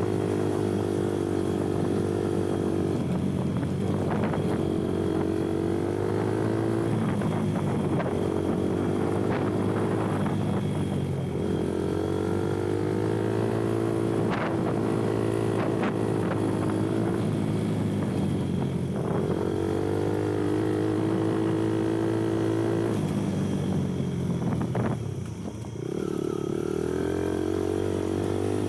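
Kuba Black Cat off-road motorcycle engine running at changing throttle. Steady stretches of a few seconds alternate with easing off and opening up again, and there is a short drop near the end. Sharp knocks and clatters from the bike run through it as it rides over rough dirt.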